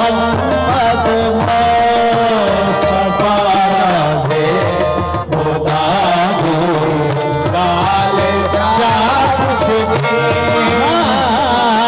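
Qawwali music: tabla strokes under a wavering, ornamented vocal melody that bends and glides in pitch, over steady sustained tones.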